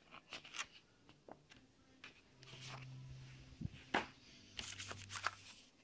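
Paper pages of a printed catalogue rustling and booklets being handled in a plastic storage box, with a run of light rustles and sharp clicks, the loudest about four seconds in. A low steady hum comes in twice.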